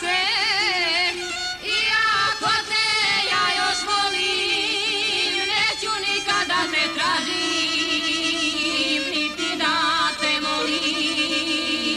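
Women singing a folk song with strong vibrato, over instrumental accompaniment.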